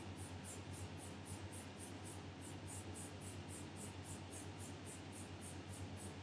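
Faint high-pitched electronic pulsing, about four pulses a second, over a steady low mains hum.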